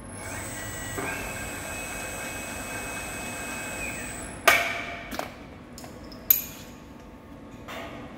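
Overhead crane hoist motor whining steadily for about four seconds as it lowers a heavy load, then a loud metallic clank with ringing, and a second sharp clank about two seconds later with lighter knocks between, as the slack crane hook and shackle strike the steel strut.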